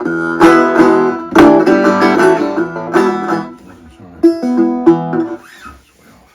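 Dobro resonator guitar being played: a handful of plucked chords struck and left to ring, dying away near the end.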